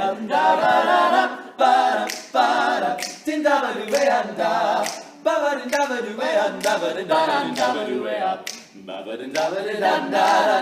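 Male a cappella group singing a wordless instrumental riff in place of a horn line, with sharp vocal-percussion hits several times a second.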